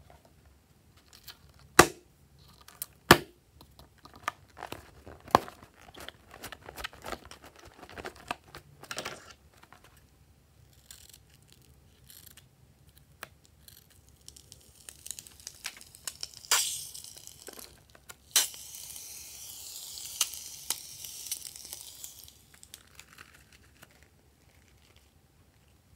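A slime-filled rubber balloon is handled with scattered clicks and taps, and its tip is snipped with scissors. From a little past halfway, white foamy slime is squeezed out of the cut balloon with a steady hiss lasting a few seconds.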